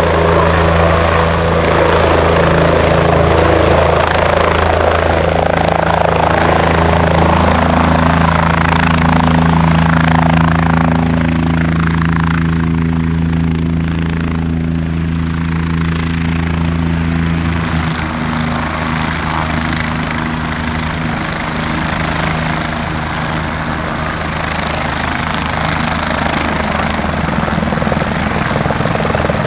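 Close-range twin-turbine helicopters: a Bell 427 running on the pad with its rotors turning, a steady rotor hum under turbine noise. Partway through, the sound changes to an Aérospatiale AS355F2 Ecureuil hovering low.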